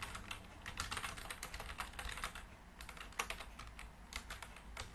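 Typing on a computer keyboard: quick, uneven runs of keystroke clicks with a short pause about halfway through.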